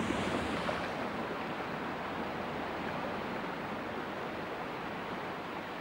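Rushing river water, a steady, even rush that grows gradually quieter.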